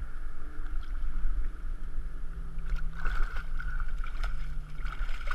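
A hooked carp splashing and thrashing at the surface at the water's edge, the splashes starting about three seconds in, over a steady low rumble.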